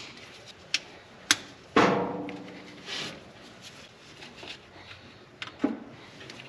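Sharp clicks and knocks from hands working on an old engine's distributor and spark plug wires. A louder metallic clank comes just before two seconds in and rings briefly.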